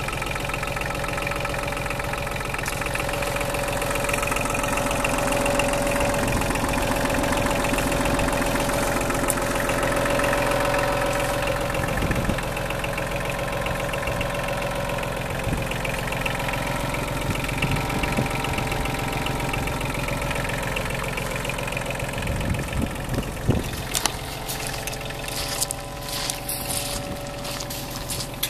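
Kubota KH-35 Bullpet mini excavator's diesel engine idling steadily, with a few sharp clicks near the end.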